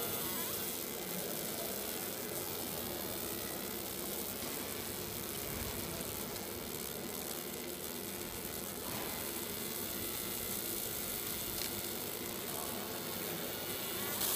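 Fiber laser engraving machine marking a metal dog tag: a steady sizzling hiss with a faint steady hum underneath.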